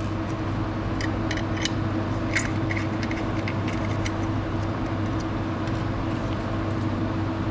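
Steady low hum of room equipment, with scattered light clicks and clinks as a hex key works the screws on a laser-writer sample holder plate.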